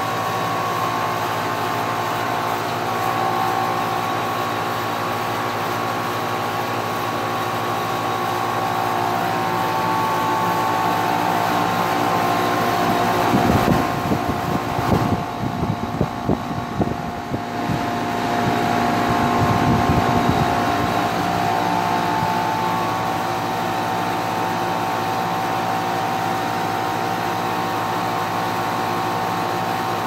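Rusty 2001 Carrier 5-ton cooling-only central air conditioner condensing unit running: a steady hum with several steady tones from the compressor and condenser fan. From about thirteen to eighteen seconds in, gusty buffeting comes and goes as the fan's discharge air blows across the microphone.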